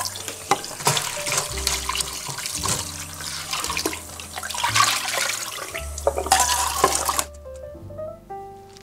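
Kitchen tap running, water splashing into a stainless mesh strainer of frozen seafood in the sink; the water cuts off about seven seconds in. Background music plays underneath.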